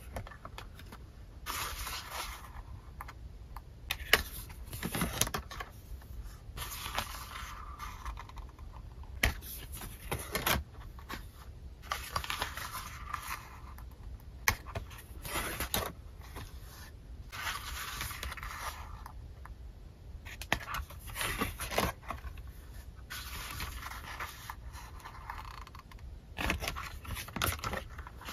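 Paper pages of a small spiral-bound desk calendar being flipped over one after another: a soft paper swish or rustle about every two seconds, with sharp little clicks and taps between them.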